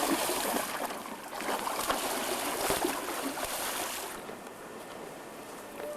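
Water splashing and sloshing, a dense hissing spray with irregular small splashes that dies down about four seconds in.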